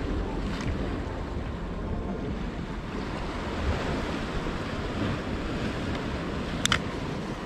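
Sea waves washing against the shore with wind rumbling on the microphone, steady throughout. Near the end there is one brief sharp click.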